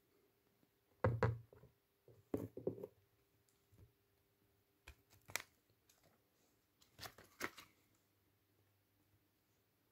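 Scattered short knocks, clicks and clatters of pens and desk clutter being bumped as a degu clambers over them, coming in small clusters about a second in, around two and a half seconds, near five seconds and again around seven seconds.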